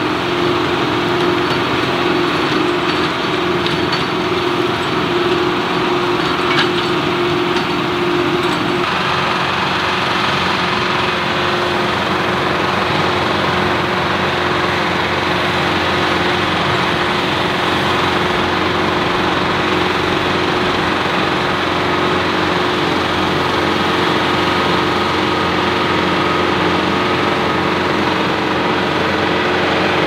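John Deere 4066R compact tractor's diesel engine running steadily under load while it drives a PTO-driven Rhino rototiller through the soil. The engine's note shifts about nine seconds in.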